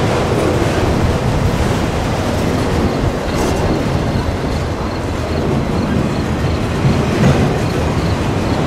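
Autorack freight cars rolling past at track level: a steady heavy rumble and rattle of steel wheels on the rails, with a couple of louder knocks about three seconds in and near the end.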